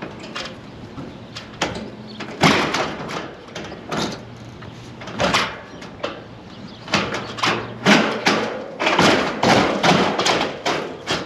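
Storm-damaged roofing being handled: an irregular series of thumps, scrapes and crinkling rustles, coming thicker and faster in the second half, over a faint steady low hum.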